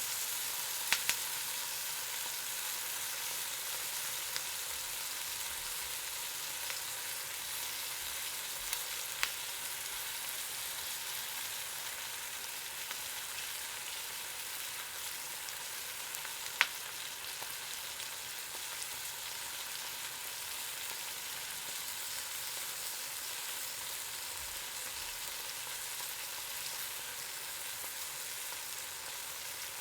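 Eggs frying in hot oil in a pan: a steady high sizzle with a few sharp pops, the loudest about halfway through.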